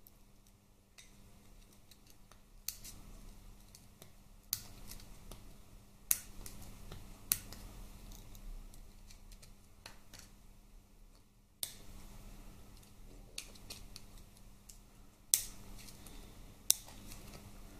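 Small screwdriver tips clicking and scraping against a tiny circlip on a Harley-Davidson Twin Cam shifter shaft as it is pried off without circlip pliers. There are several sharp metallic clicks at irregular intervals over a faint scraping.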